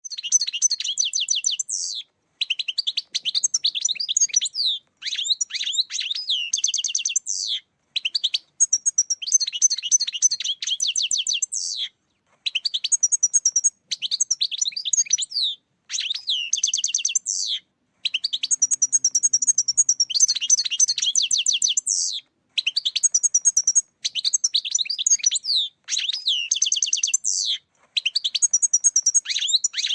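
European goldfinch song: bright twittering and trilling phrases, one to two seconds each, repeated one after another with short gaps. A recording of the kind played to lure goldfinches for catching.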